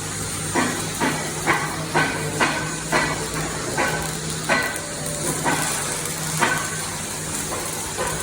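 Repeated metal-on-metal strikes with a ringing tone, about two a second, stopping about six and a half seconds in, over the steady hum of an engine running.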